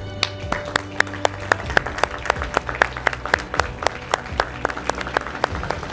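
Audience applauding, with sharp individual hand claps standing out.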